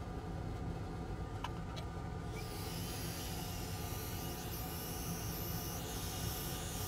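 Hot air rework station blowing on a laptop motherboard to solder a new power MOSFET onto its pads: a steady airflow hiss starts about two and a half seconds in and holds. Underneath is a low steady hum.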